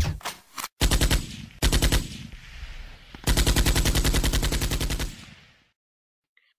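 Automatic gunfire in several rapid bursts: short bursts at the start, about a second in and just before two seconds, then one long burst of almost two seconds that fades out.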